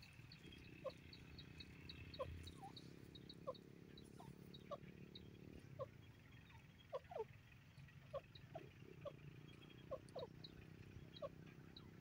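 Grey francolin giving soft, short low calls about once a second, now and then two in quick succession, with faint high ticks behind them.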